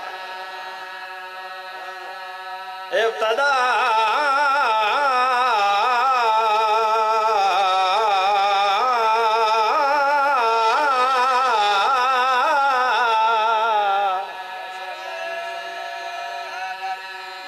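A man's voice chanting a qasida (devotional elegy) into a microphone: one long, loud melismatic phrase with the pitch sliding and wavering, between softer held tones in the first three seconds and after about fourteen seconds.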